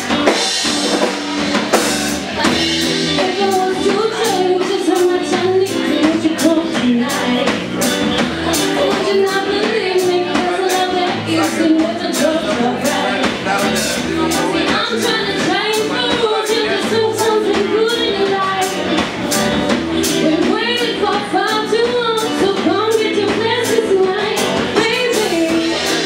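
Live band music with a woman singing lead into a microphone over a steady percussion beat.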